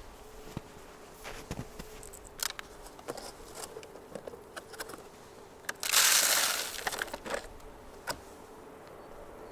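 Snow shovel crunching and scraping through wet snow in scattered strokes, with one louder scrape about six seconds in.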